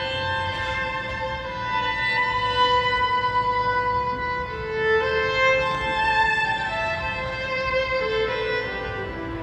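Amplified violin playing a slow melody of long held notes, with two or three notes sounding together. The lowest line steps down in pitch about halfway through and again near the end.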